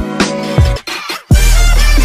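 Background music for an end screen: one track cuts out a little under a second in, a short glitchy sweep follows, and a new track with a heavy bass comes in.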